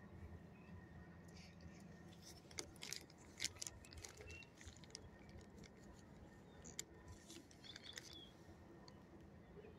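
Near-quiet ambience with scattered faint crinkles and clicks, mostly in a cluster a few seconds in and again near the end, from a plastic bag of dog treats being handled.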